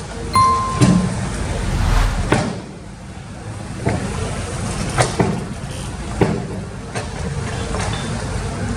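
Excavator's diesel engine running steadily, with repeated sharp knocks and clanks roughly every second or so, and a brief high steady tone about half a second in.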